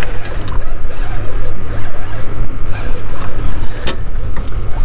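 Steady low rumble of wind on the microphone over choppy water at a boat's side, with one sharp click about four seconds in.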